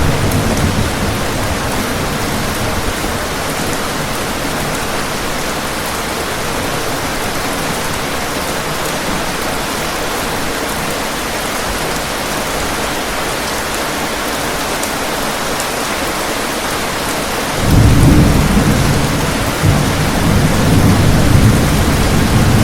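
Steady rain falling throughout, with a low thunder rumble dying away in the first second. About eighteen seconds in, thunder breaks in suddenly and loudly and rolls on as a deep rumble to the end, swelling again a couple of seconds later.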